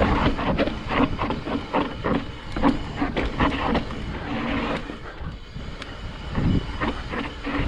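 Mountain bike rolling over rough rock trail: a steady low rumble of tyres and wind on the microphone, with irregular clattering knocks as the bike jolts over rocks.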